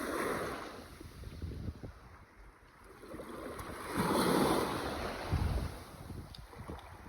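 Sea waves surging and washing, one swell at the start and a louder one about four seconds in, with wind buffeting the microphone.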